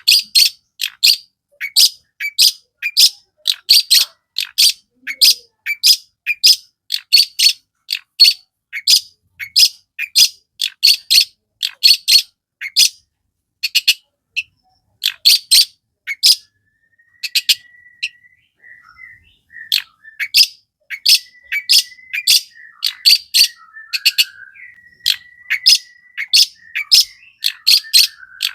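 Long-tailed shrike (cendet) calling in a fast series of short, harsh notes, about two a second, with a brief pause about halfway through. A faint, thin whistle runs beneath the calls in the later part.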